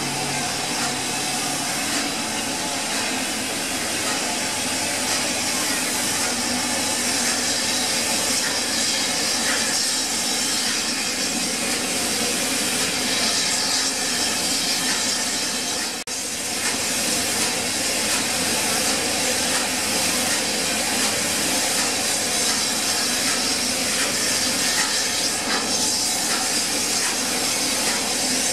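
LMS Princess Coronation class Pacific steam locomotive 6233 'Duchess of Sutherland' hissing steam from its cylinder drain cocks as it moves slowly alongside the platform. The hiss is loud and steady and breaks off for an instant just past halfway.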